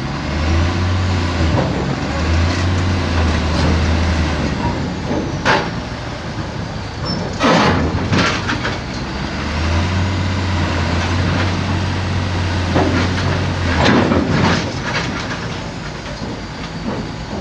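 Heavy crane machinery working under load: a low diesel engine hum that drops away and comes back, broken by several loud clanks and scrapes of steel as the crawler crane's tracks tip and slide over the lowboy trailer's deck.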